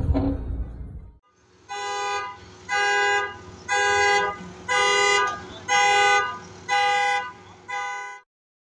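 A vehicle horn honking in seven even blasts, about one a second.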